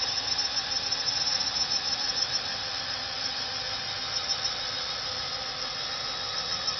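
Ghost quadcopter's electric motors and propellers whining steadily as it hovers low, a high multi-toned drone hum.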